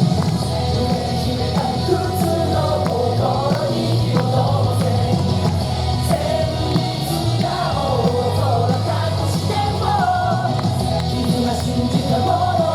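Rock-style song with a sung melody over a steady bass beat, playing without a break.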